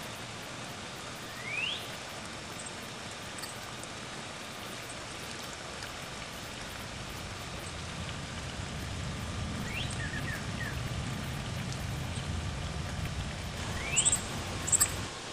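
Northern cardinals calling: single rising whistled notes about a second and a half in, about ten seconds in and near the end, a quick run of short notes just after the second one, and sharp high chips near the end. Underneath is a steady hiss, with a low rumble swelling in the second half.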